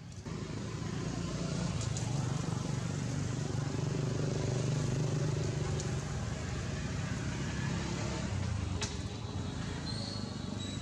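A motor vehicle's engine running, a low steady hum that comes up at the start and eases slightly near the end.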